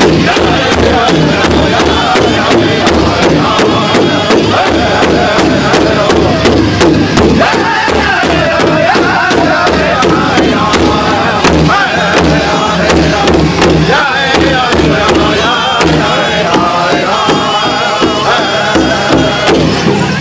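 Powwow drum group: several men singing together in high, strained voices over a large shared hide drum struck in unison with drumsticks, a steady beat about three times a second.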